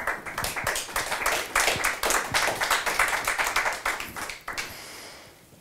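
A small audience applauding with many quick, overlapping hand claps, which die away after about four and a half seconds.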